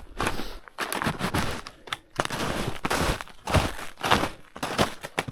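Footsteps crunching through snow, about two uneven steps a second.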